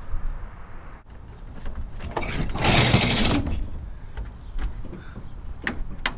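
Hinged side windows of a pickup camper shell being pushed open, with clicks and knocks from the window frames and prop arms. A short, loud rushing hiss comes about three seconds in, over a low rumble.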